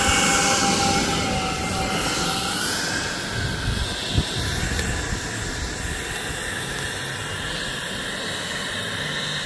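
Twin electric ducted fans of a large RC F-14 model jet whining over a steady rush of air while it taxis; the fan pitch drops about two and a half seconds in. A few sharp clicks about four seconds in.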